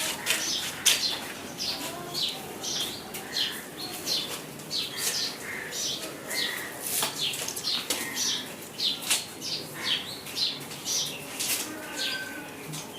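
Small birds chirping in many short, quick notes, with brief rustling snaps mixed in.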